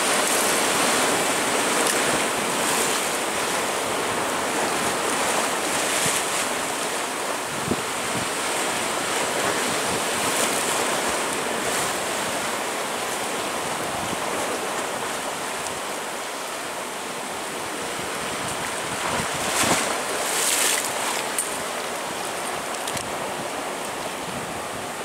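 Atlantic surf washing over and around shore rocks, a steady rush of churning white water, with a louder surge about twenty seconds in.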